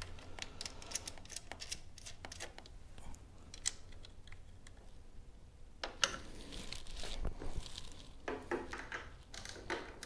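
Faint, irregular small clicks and rustling of hands threading an acorn nut onto its stud and handling a wrench.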